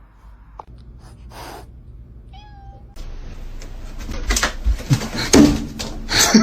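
A domestic cat meowing, with a few knocks and thumps in the louder second half.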